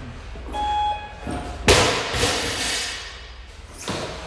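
Heavy thuds in a gym with a rubber floor. The loudest comes about a second and a half in and is followed by a clatter and ring, with a smaller thud near the end. A short ringing tone sounds just before the big thud.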